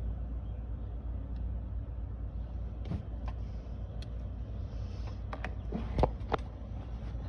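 A handful of sharp clicks and snaps of hand tools working on a wire under a steady low rumble, the clicks bunching together between about five and six and a half seconds in.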